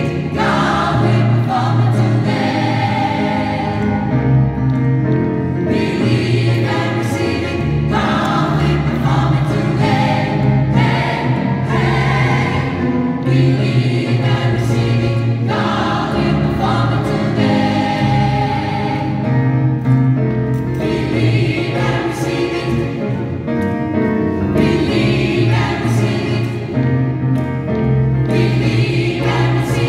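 Gospel choir of women and men singing together.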